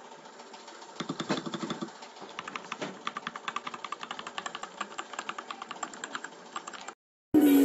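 Fast typing on a Rakk Pirah Plus 66 mechanical keyboard with Gateron Milk Yellow switches: a quick run of many key clacks, starting about a second in and stopping shortly before the end. Music begins just after a brief silence near the end.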